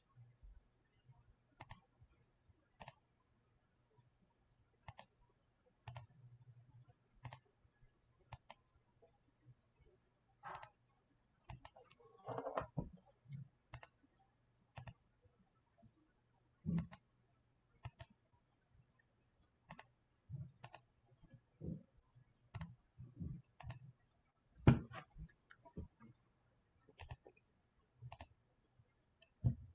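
Sparse, irregular clicking of a computer keyboard and mouse, a click every second or so. A brief muffled sound comes about twelve seconds in, and one sharper, louder knock about twenty-five seconds in.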